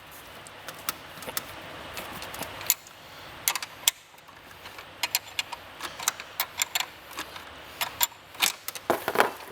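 Metal wrenches clicking and clinking irregularly against the nuts and copper straps of a hot tub heater as the nuts are worked loose, some strikes ringing briefly.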